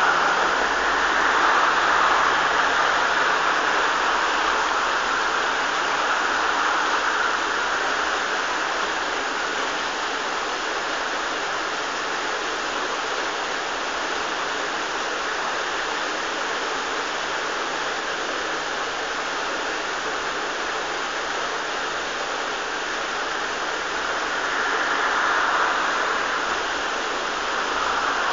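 Water running steadily in a canal lock, a continuous rushing that swells just after the start and again near the end.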